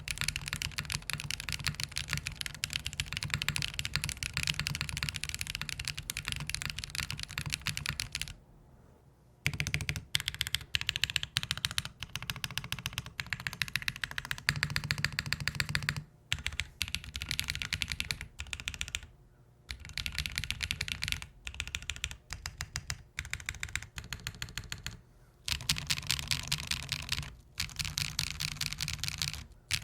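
Typing on a Jris75 mechanical keyboard with lubed Voyager Tactile switches and GMK Minimal keycaps: fast runs of keystrokes broken by short pauses, the longest about eight seconds in.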